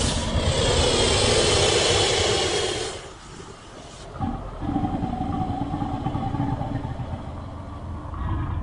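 Designed monster sound effects for the kaiju Biollante: a loud, harsh roar that cuts off sharply about three seconds in, then after a short lull a low, engine-like rumbling growl that runs on.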